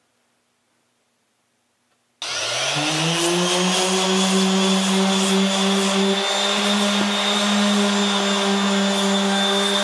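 Electric power sander switched on about two seconds in, spinning up within a second to a steady high-speed motor whine, used for sanding the cured fiberglass resin filler.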